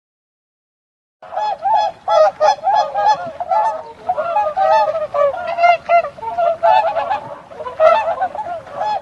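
Goose-like honking: a fast, unbroken run of nasal, wavering calls, several a second, starting about a second in.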